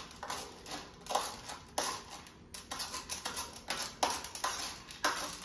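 Steel spoon scraping and clicking against a steel plate while stirring oil-coated dried maize kernels, about two strokes a second.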